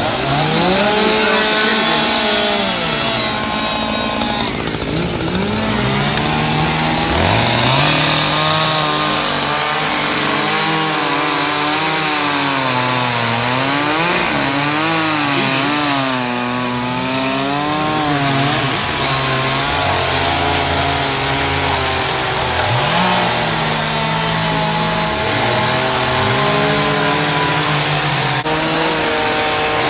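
Chainsaw running loud and steady for chainsaw carving, its engine pitch rising and falling again and again as it revs up and eases off through the wood.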